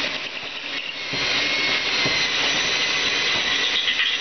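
Electric drill running under load, its twist bit boring into 12 mm mild steel plate on a boat keel, with a steady whine. It eases for a moment just under a second in, then runs on steadily.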